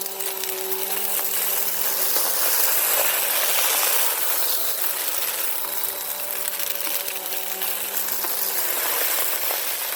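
Bissell Power Force Compact vacuum running steadily, sucking up sand and debris that rattles and clicks through the nozzle, over the motor's steady hum and airflow hiss.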